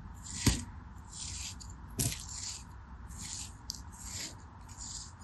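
Kinetic sand being sliced with a thin metal blade: a series of short, crisp scraping cuts, about two a second. Two sharper clicks stand out, about half a second and two seconds in.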